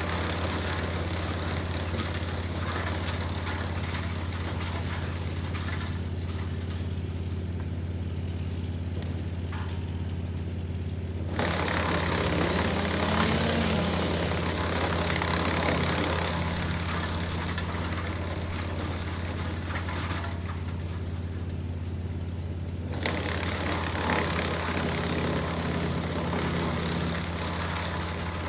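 Wood chipper engine running at a steady pitch, with the louder noise of wood being chipped setting in suddenly about eleven seconds in, easing off, then starting again suddenly near the end.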